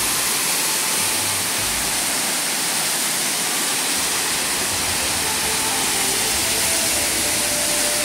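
Waterfall: many thin streams falling over mossy rock into a pool, making a steady rushing hiss.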